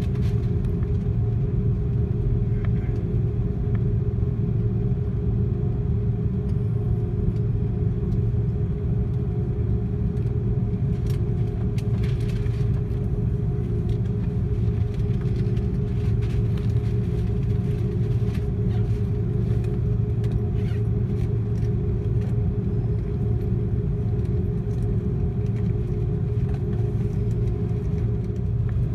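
Cabin noise of an Airbus A330-300 taxiing, heard from a seat over the wing: a steady low rumble of the engines at taxi power with a constant humming tone.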